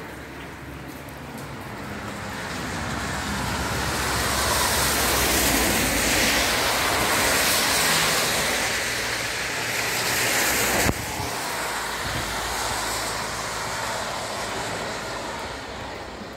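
Cars passing on a rain-soaked road, tyres hissing through the wet surface. The sound swells over several seconds, drops off suddenly about two-thirds of the way through, then fades.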